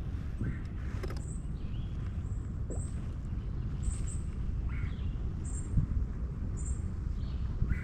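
Small birds chirping: short high chirps repeat about once a second, with a few lower chirps in between, over a steady low rumble of wind on the microphone.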